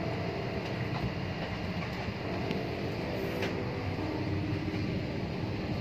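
Steady airliner cabin noise: the even hum and hiss of the aircraft's ventilation and engines heard from inside the passenger cabin.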